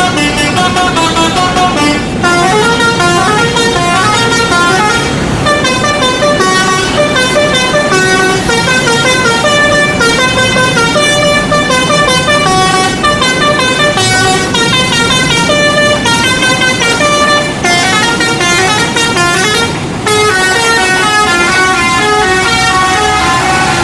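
Telolet musical horn playing a fast, continuous tune of stepping notes, with a brief break near the start and another near the end, and it finishes on a long held note.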